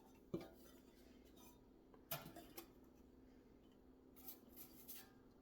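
Faint, scattered light clicks and small metallic rattles from handling metal parts, heard against near silence: one sharp click just after the start, a few more about two seconds in, and a quick run of them near the end.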